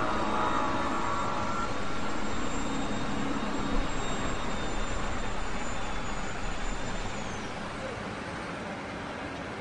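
Loud, drawn-out groaning drone of unknown origin, of the kind posted as mysterious 'strange sky sounds', heard as a steady rumbling hiss. A wavering mid-pitched tone fades out in the first couple of seconds, and a thin high whine slides down and stops about seven seconds in, after which the noise is a little quieter.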